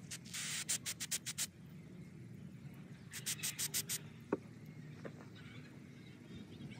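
Aerosol carburetor cleaner sprayed through its straw in short hissing bursts, clearing gunk from carburetor jets: a brief spray, then a quick run of puffs, and another run of puffs about three seconds in. A single small click follows.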